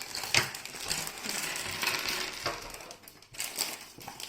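Rustling and handling of a LEGO set's packaging, with a few sharp clicks, the clearest about half a second in.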